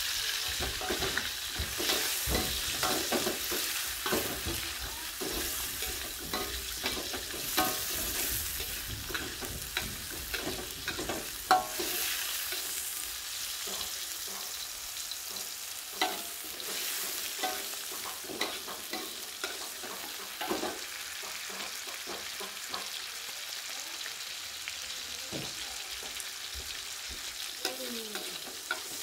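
Diced eggplant frying in a steel wok, a steady sizzle, with a metal spatula scraping and clinking against the pan as it is stirred, one clank louder than the rest about a third of the way through.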